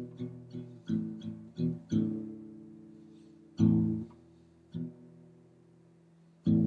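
Background music on acoustic guitar: a quick run of strummed chords, then a chord left ringing, then a few single strums.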